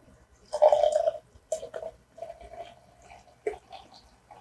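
Cola poured from an aluminium can into a small glass pitcher, splashing and glugging as it fills, loudest about half a second in.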